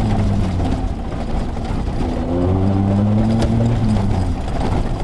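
A 4x4 rally-raid car's engine running hard on a dirt track. Its pitch climbs for about a second from halfway in, then drops away near the end, with scattered knocks from the rough surface.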